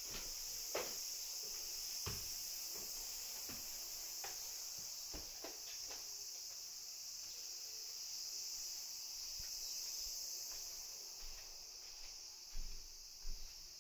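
Footsteps on wooden stairs and floorboards, a handful of irregular knocks over the first six seconds, against a steady high-pitched hiss; a few low thumps near the end.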